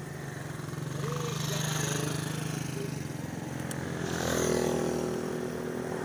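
A motorcycle engine running as it goes by on the road, getting louder about four seconds in and then easing off.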